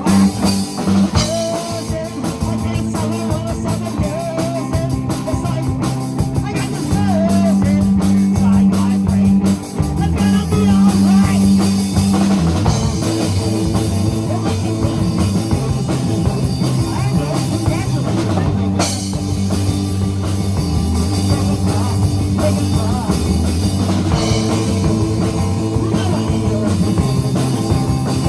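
A rock band playing live, with drum kit and guitar.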